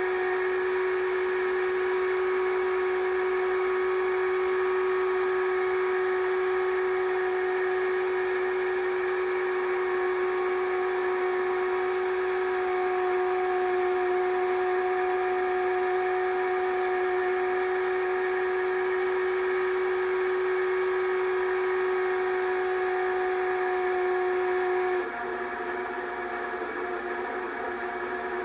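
Home-movie film projector running, a steady motor whine with a constant pitched hum. Near the end it turns slightly quieter and a little lower in pitch.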